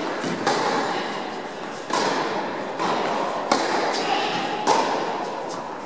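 Tennis ball struck back and forth by rackets in a rally, a sharp hit about every second, each hit echoing in the large indoor hall.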